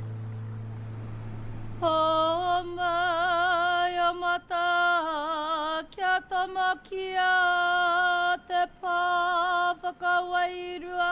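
A woman performing a karanga, the Māori ceremonial call: a single high voice holding long, wavering, chanted notes with short breaks between phrases. It begins about two seconds in, as a sustained music chord fades out.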